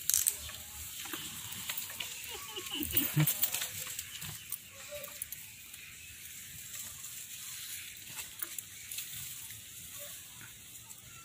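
Long-tailed macaques feeding on bananas on the ground: scattered soft crackles, clicks and rustles of peels, dry leaves and litter being handled and moved over, busiest in the first few seconds.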